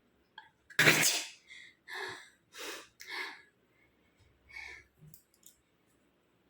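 A woman sneezes loudly once, about a second in: a forced sneeze brought on by tickling inside her nose. Several shorter, quieter breaths follow over the next few seconds.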